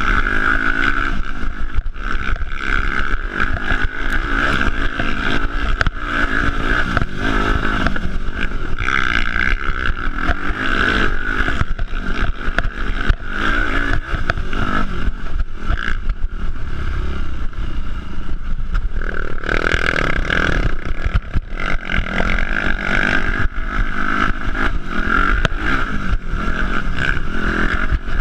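Yamaha four-stroke dirt bike engine heard from the rider's seat, its revs rising and falling while riding a rough dirt trail, with frequent knocks and rattles from the bike going over bumps.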